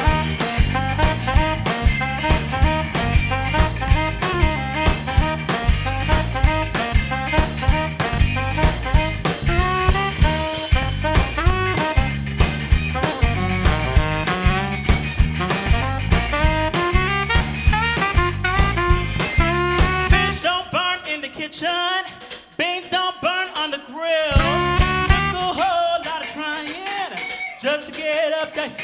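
Live band playing a lively jazz-gospel groove on drum kit, bass, electric guitar and saxophone, with a steady beat. About twenty seconds in, the bass and drums drop out and only the higher melody instruments carry on.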